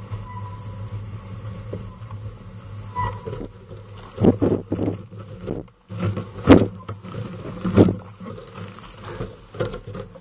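Bicycle towing a pet trailer over a paved road: a steady low rolling rumble with irregular rattles and knocks from bumps, the loudest about six and a half seconds in.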